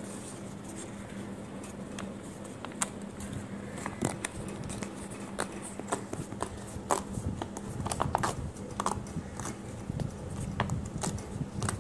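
Paper crinkling and tearing as a folded paper PIN mailer is handled and its perforated side strips are pulled off, with many scattered sharp crackles that come thickest a little past the middle. A steady low hum runs underneath.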